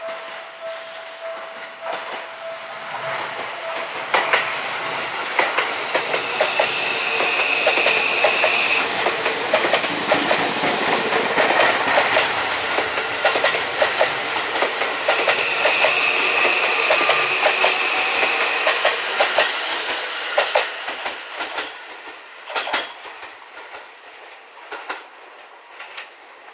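Seibu 001 Series Laview limited express train passing close by, its wheels clacking over rail joints as the rumble swells and then fades, with a high tone coming and going twice. A steady level-crossing warning tone sounds for the first few seconds.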